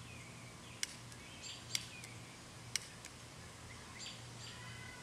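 Birds chirping, with three sharp clicks about a second apart, over a faint steady low hum.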